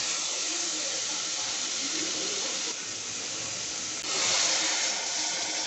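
A steady hissing noise with no clear pitch, which jumps in level abruptly twice, at about halfway and again about two-thirds through, where it is loudest.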